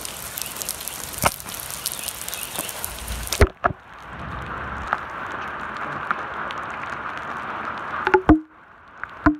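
Heavy rain hissing on a wet asphalt road, broken by several sharp taps of single drops striking close by. About three and a half seconds in, the hiss abruptly turns duller and quieter.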